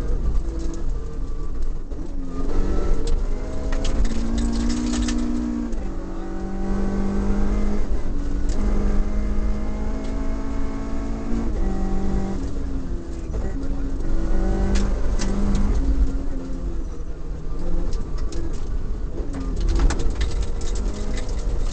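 Toyota Corolla Levin's 4A-GE four-cylinder engine revving hard through the gears under rally driving, its pitch climbing and dropping again and again, with a heavy rumble of gravel road noise inside the stripped cabin. Sharp clicks of stones striking the car come in a few clusters.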